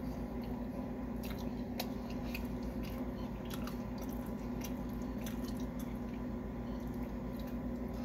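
A man chewing a mouthful of burger, with scattered small mouth clicks over a steady low hum.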